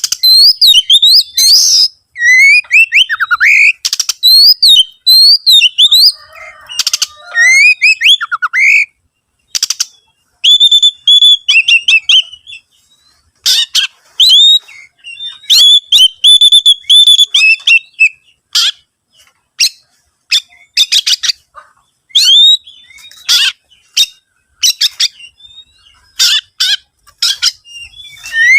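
Oriental magpie-robin singing loudly and continuously: a fast, varied run of sweeping whistles, quick trills and short harsh scratchy notes with brief pauses, the full song with mimicked phrases ('isian') of a bird in top singing form ('gacor').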